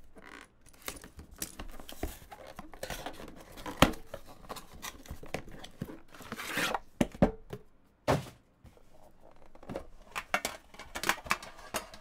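A cardboard hockey card box being opened by hand: cardboard scraping, tearing and sliding as the inner box is pulled out, with sharp clicks and knocks from the handling and a longer rustling swish about two-thirds of the way through. Near the end a metal tin is handled.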